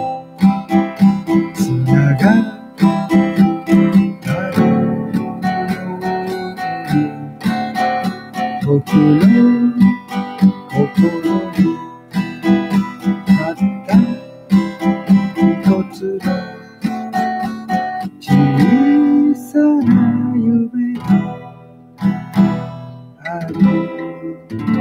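Acoustic guitar strummed, playing a run of chords.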